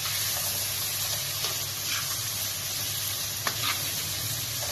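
Keema (minced meat) with freshly added chopped tomato, onion and green chillies sizzling as it fries in oil in a wok, while a spatula stirs through it, with a few light knocks against the pan.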